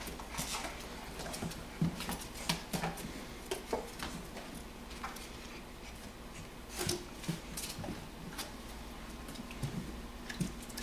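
Golden retriever puppies, four to five weeks old, playing: scattered taps, knocks and scuffles of paws and claws on a plastic slide and toys.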